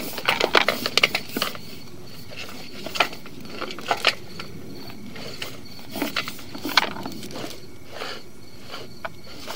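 Sewer inspection camera's push cable being fed by hand into the sewer line, making irregular clicks and knocks. They come thick and fast for the first second and a half, then only now and then.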